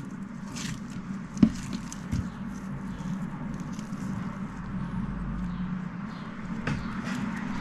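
Coloured slime being handled by hand: soft sticky squishes with a few sharp clicks, the loudest about one and a half seconds in, over a steady low hum.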